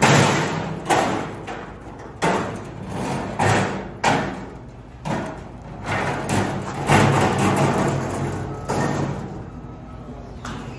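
Stack of drywall sheets scraping and sliding over a Cybertruck's tailgate into the bed as a forklift shoves it in, in a string of sudden scraping surges, with the forklift's engine running underneath.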